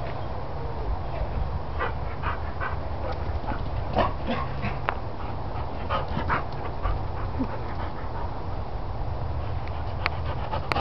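Dog panting, with a few short whimpers from a dog that wants its stolen toy bear back, over a steady low rumble.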